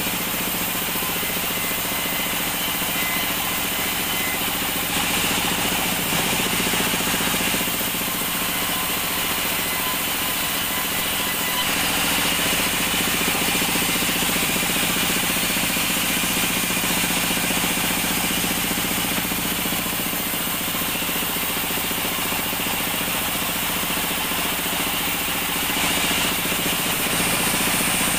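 Vertical band sawmill running steadily while ripping an acacia plank lengthwise: a continuous mechanical drone with a constant hum, a little louder at times.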